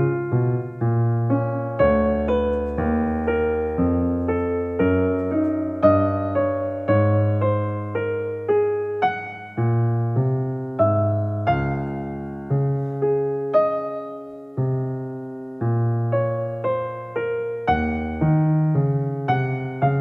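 Background piano music: a gentle solo piano melody, notes struck one after another and fading.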